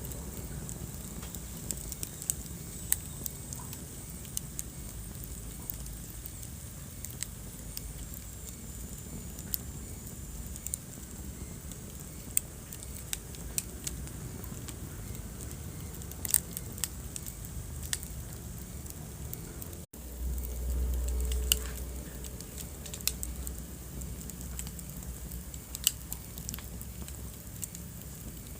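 Wood fire crackling in a fireplace: irregular sharp pops and snaps over a low rumble of the flames. The sound cuts out for an instant about twenty seconds in, and the low rumble is louder for a couple of seconds after.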